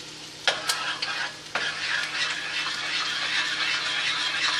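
A pot of homemade barbecue sauce of boiling water, brown sugar, vinegar and ketchup on the stove. There are a few clicks and knocks in the first second and a half, then a steady sizzling hiss that sets in suddenly and grows slightly louder.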